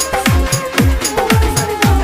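Electronic dance music: a deep kick drum falling in pitch about twice a second, over hi-hat ticks and a held synth line.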